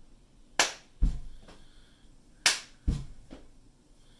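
A child's body-percussion beat: a sharp hand clap followed by a low thump, played twice as an even repeating pattern.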